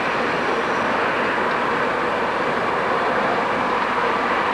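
Two British Rail Class 08 diesel shunters running coupled together, their English Electric six-cylinder diesel engines sounding as a steady, even drone while the pair moves along the track.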